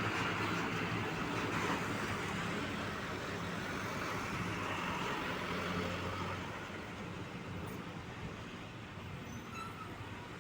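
Truck traffic on a road: an engine's low hum with tyre and road noise, loudest over the first six seconds and then fading as it moves off.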